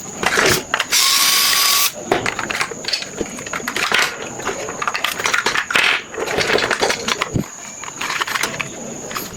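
Small plastic mechanism of a toy dinosaur clicking and ratcheting as it is handled and worked on, with a loud hissing burst lasting about a second, starting about a second in.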